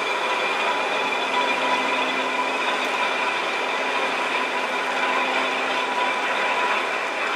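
Railway turntable rotating with an EF81 electric locomotive on its deck: a steady mechanical running noise with a few steady whining tones, and a low hum that joins about a second in.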